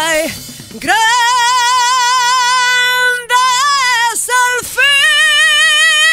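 Isolated live lead vocal of a female singer, with no band: long, high held notes with wide vibrato, broken by a few short breaths.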